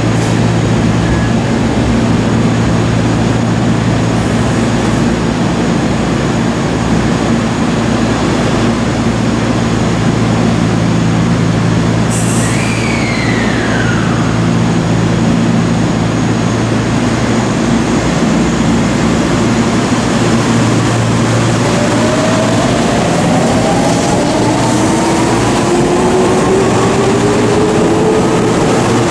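Seibu 20000 series electric commuter train standing with a steady low hum, then pulling away. From about two-thirds of the way in, its inverter-driven traction motors whine, rising in pitch as it accelerates. A short falling tone sounds about halfway through.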